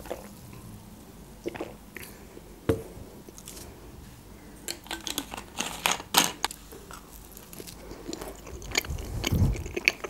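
Close-miked eating sounds: a drink of juice, then a pizza slice handled, bitten and chewed, heard as a scatter of crisp crackles and mouth clicks, busiest about halfway through, with a dull low knock near the end.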